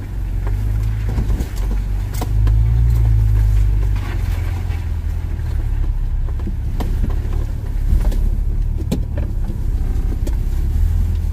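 Off-road 4WD vehicle crawling slowly over a rough, rutted forest track, heard from inside the cabin: a steady low engine and drivetrain rumble with scattered knocks and rattles as the vehicle lurches over the ruts.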